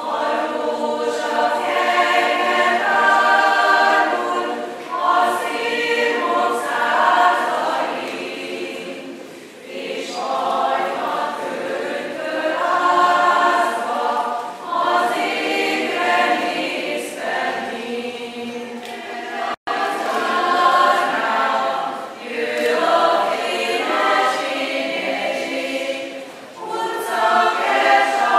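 A women's choir singing unaccompanied in sustained phrases, with short breaks between phrases and a momentary dropout in the recording about two-thirds of the way through.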